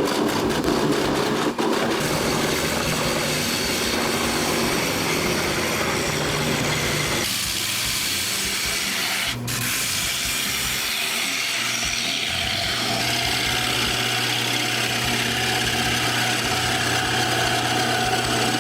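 Woodworking machinery cutting wood: a steady, noisy grinding hiss that changes abruptly about seven seconds in.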